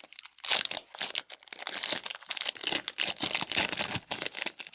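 Foil wrapper of a Pokémon trading-card booster pack crinkling and being torn open by hand, in irregular crackling bursts.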